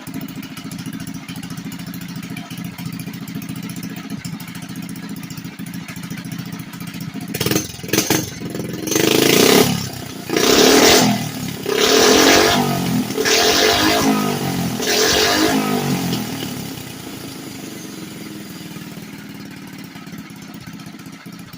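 79 cc Phatmoto/Bigniu BG-X engine with a JMCHStore header pipe, loud. It idles steadily, then is blipped through about six quick revs and settles back to idle.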